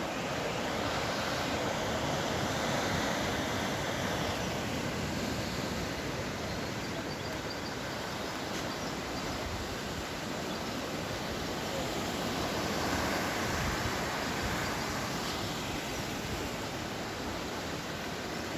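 Atlantic Ocean surf breaking and washing onto the shore: a steady rush that swells twice, a couple of seconds in and again around the thirteen-second mark.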